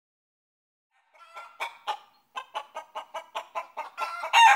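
Chicken clucking: a few separate clucks, then a quick run at about five a second, rising into a louder, drawn-out squawk near the end.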